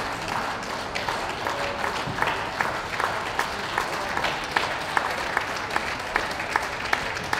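Audience applauding, with sharp single claps standing out at about two or three a second.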